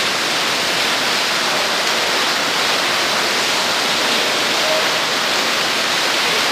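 Steady, loud rush of falling water in a roofless, flooded building.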